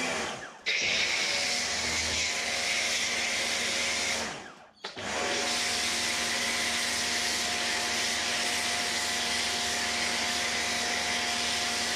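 Kärcher electric pressure washer running a foam cannon: a steady motor-and-pump hum under the hiss of foam spraying. It starts about half a second in, cuts out briefly a little past a third of the way through, then runs steadily again.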